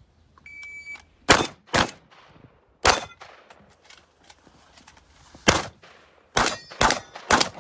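A short electronic start beep from a shot timer, then seven shotgun shots in an uneven string. Two come in quick succession and a third follows a second later. After a pause of over two seconds comes a fourth, then three more fired quickly near the end.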